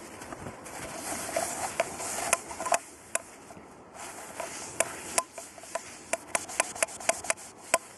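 Camp cookware being scrubbed and wiped out by hand, a rubbing hiss, then a quick run of light sharp clicks and taps as the gear is handled over the second half.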